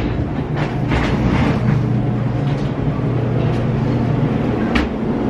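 Steady low mechanical hum of airport gate machinery, with a few brief rustling and shuffling sounds about a second in and near the end.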